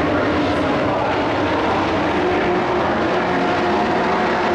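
Engines of a pack of dirt-track racing trucks running together on the oval, a steady blend of many overlapping engine notes.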